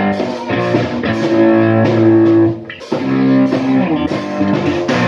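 Small live band playing: electric guitar chords over a drum kit with regular cymbal hits, stopping briefly a little under three seconds in before carrying on.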